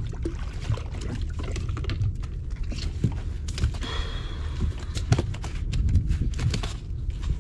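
Low steady rumble of wind on the microphone, with scattered knocks, clicks and rustles of a catch being handled on a fishing kayak. About three and a half seconds in there is a short hiss with a faint high tone.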